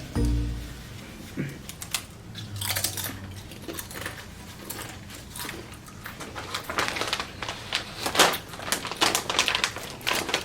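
A run of irregular clicks and crackles, sparse at first and denser in the second half.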